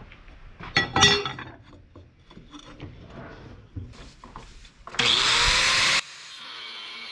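Clatter and knocks of a wooden handle blank being set and clamped in a metal vise, loudest about a second in. About five seconds in, an angle grinder with a cutting disc starts up with a rising whine, runs for about a second and cuts off abruptly; faint music follows.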